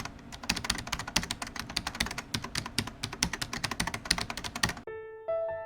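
Rapid typing on a computer keyboard, a fast irregular run of key clicks that stops about a second before the end, when soft piano notes begin.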